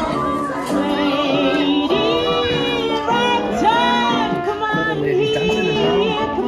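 A woman singing into a microphone over a PA, holding several long notes with a wavering vibrato.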